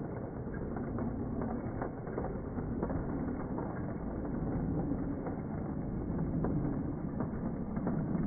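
Lionel O-gauge model train, a pair of 0-6-0 locomotives with freight cars, running on track: a steady motor and gear hum over wheel rumble, with scattered light clicks.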